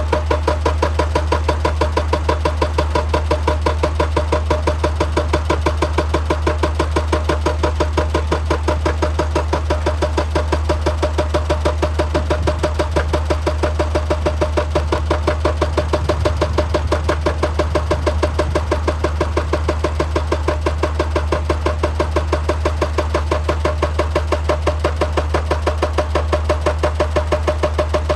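Excavator running steadily, with a regular knocking pulse about three times a second.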